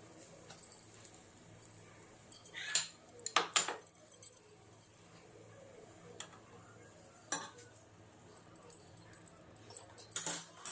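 Kitchen utensils and dishes clinking in short bursts: a cluster of clinks about two and a half to three and a half seconds in, a single one at about seven seconds, and another cluster near the end.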